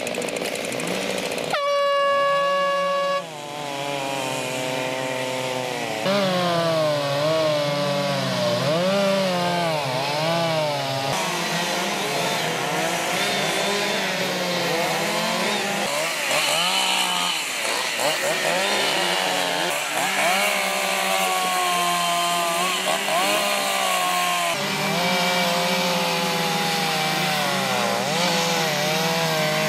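A handheld air horn sounds one steady blast of about a second and a half, the signal for the timed carve to begin. Then several chainsaws start up and rev up and down as they cut into logs.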